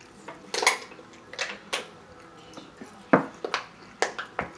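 A string of short, sharp clinks and knocks from tableware and aluminium soda cans being handled at a meal table, spaced irregularly with a cluster about three to four seconds in.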